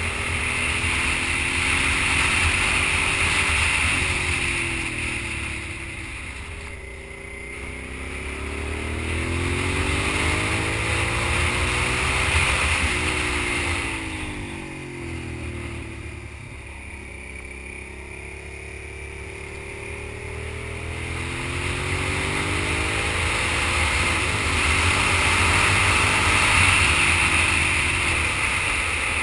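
Sport motorcycle engine under way, its pitch rising and falling again and again as the rider rolls on and backs off the throttle through the bends, with a steady rush of wind noise. It swells louder three times and eases off between.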